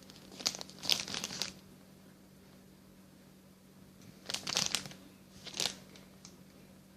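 Plastic packaging crinkling as it is handled, in two short spells: one in the first second and a half, another from about four to nearly six seconds in.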